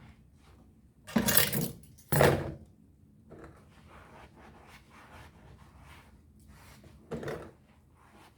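Three short knocking, scraping noises of household objects being handled: two close together about a second in, and one near the end.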